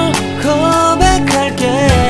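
Background pop music with a steady beat and a melody line that slides between notes.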